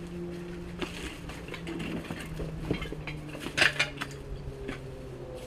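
Airsoft gunfire: irregular sharp clicks and clinks, with the loudest cluster about three and a half seconds in, over a faint steady hum.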